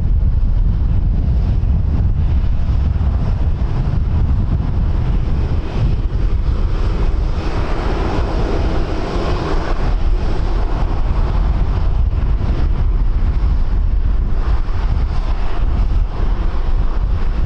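Strong wind buffeting the microphone, a heavy low rumble throughout, with a louder rushing noise swelling and fading about halfway through.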